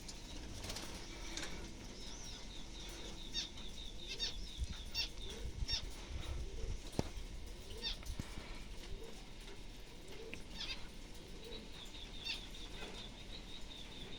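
Small fancy birds in an aviary chirping in short, repeated high notes, with a quick run of notes near the end, and wing flutters and rustling among them.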